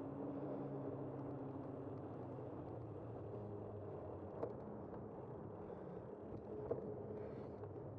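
Steady street and road noise with a low engine-like hum, heard from a moving bicycle. Two sharp clicks cut through it, a little over two seconds apart.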